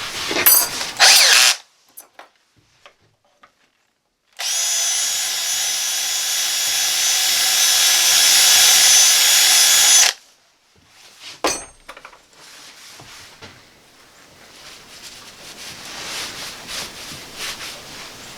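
Electric drill motor running steadily with a whine for about six seconds, starting suddenly a few seconds in and cutting off abruptly, with a few clicks and handling knocks around it.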